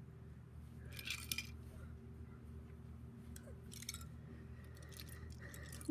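Plastic LEGO pieces clicking and clinking against each other as a hand picks through a pile of loose bricks, in short clusters about a second in and again near four seconds.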